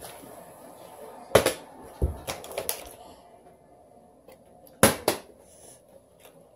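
Plastic water bottle flipped onto a hardwood surface, knocking as it lands and bounces. There is a cluster of knocks, one a dull thud, between about one and a half and three seconds in, and two sharp knocks close together near five seconds in.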